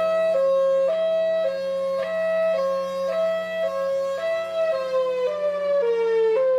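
Tornado warning siren sounding a two-tone hi-lo alert, switching between a higher and a lower pitch about every half second. Over a steady low hum, both tones sink step by step in the last couple of seconds.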